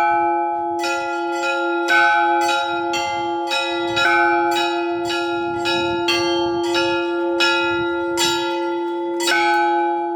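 Church bells ringing: smaller bells struck in a quick, uneven pattern, about two strikes a second, over the lingering hum of a deeper bell.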